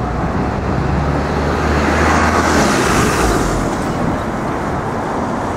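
Road traffic passing on a busy city street, with one vehicle going by that swells to a peak about halfway through and then fades.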